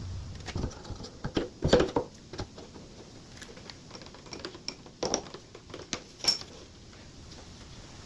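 Irregular light clicks, taps and clinks of metal hand tools and parts being handled while the boring bar's cutter is set for the next cut. The sharpest clinks come about two seconds in and again near six seconds.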